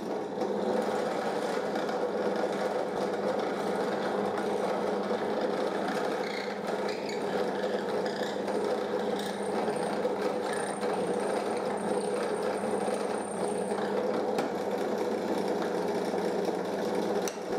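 Bench drill press running steadily, its bit turning inside a drilled slot in a small plywood piece that is slid from side to side to clean the slot out.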